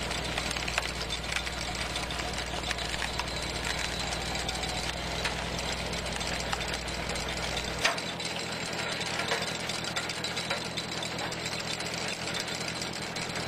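Tractor engine running steadily, driving a PTO-powered screw log splitter as its cone screw bores into a log. A single sharp crack about eight seconds in.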